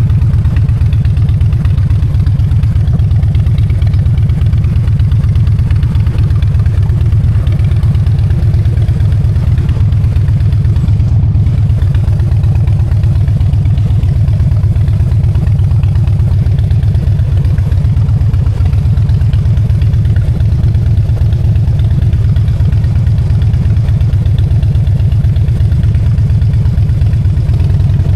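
Harley-Davidson Dyna Street Bob's air-cooled V-twin engine running steadily with an even low pulse, holding the same pace throughout.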